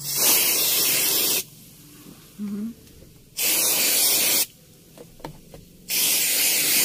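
Aerosol can of car AC cleaning foam spraying into the roof air-conditioning vents in three hissing bursts of about a second each, with short pauses between.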